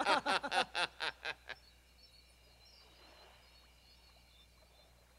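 A man's hearty laugh in quick, even bursts that dies away about a second and a half in, followed by faint, steady background ambience with a few high thin tones.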